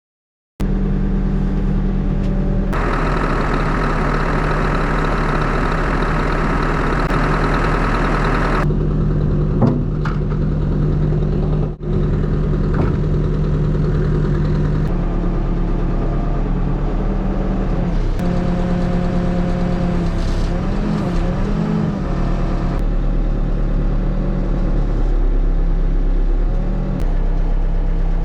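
Backhoe's diesel engine running steadily, with a stretch of added hiss for about six seconds near the start and the engine pitch rising and falling briefly about twenty seconds in.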